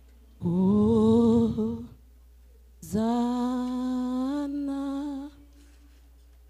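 A woman's solo voice singing slowly without accompaniment into a microphone: two long, held phrases with a short pause between them, the second a sustained note that steps up slightly near its end.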